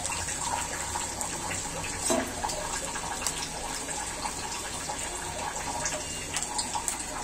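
Lentil-batter fritters deep-frying in hot oil in a cast-iron karahi: a steady sizzling and bubbling with many small crackles, and one short louder sound about two seconds in.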